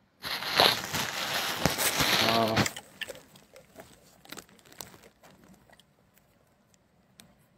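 Loud rustling and scraping close to the phone's microphone for about two and a half seconds, with a brief pitched sound near its end, then scattered faint clicks.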